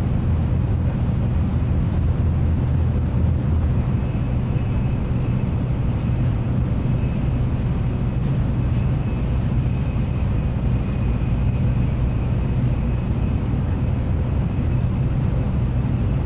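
Cabin noise of a Nozomi Shinkansen bullet train running at speed: a steady low rumble. A faint, high, steady tone joins about four seconds in.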